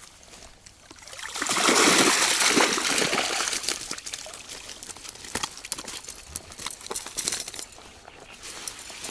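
Water pouring and streaming out of a mesh fishing keepnet as it is lifted out of a pond, loudest for about two seconds. Afterwards the wet net rustles and clicks as it is handled.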